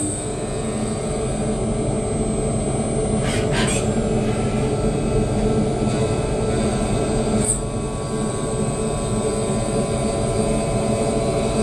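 Dure Vertical 5060 CNC vertical milling machine running steadily while milling a cast part, with a constant high-pitched whine over a dense machine hum. Two brief rasps break in, about three and a half seconds in and again about seven and a half seconds in.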